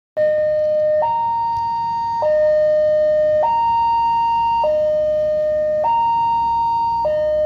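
Railway level-crossing warning alarm sounding as the crossing barrier comes down: an electronic two-tone signal switching between a low and a high tone about every 1.2 seconds, warning of an approaching train.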